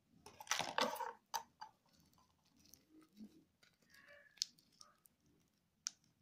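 Small clear plastic packet crinkling and rustling as fingers handle it, with a burst of crackle in the first second and a few sharp clicks later.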